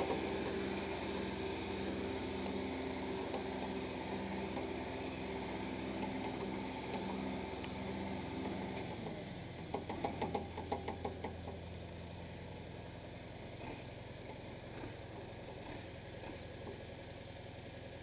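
John Deere backhoe's diesel engine running steadily, its note dropping to a lower, quieter idle about nine seconds in. A quick run of rattling knocks follows just after the drop.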